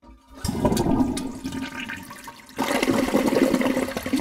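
Toilet flushing: a rush of water that starts just after the opening and surges louder about two and a half seconds in.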